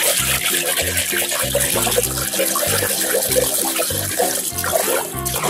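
Water splashing and sloshing in a plastic basin as a hand scrubs a small plastic toy under the surface, over background music with a steady low bass line.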